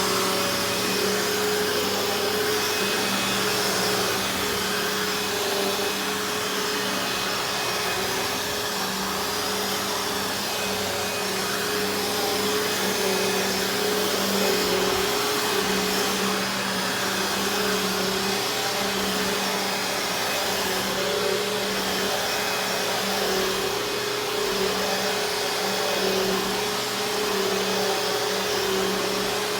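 Eureka The Boss upright vacuum cleaner running steadily while being pushed over carpet, a constant motor hum under a rushing hiss of air.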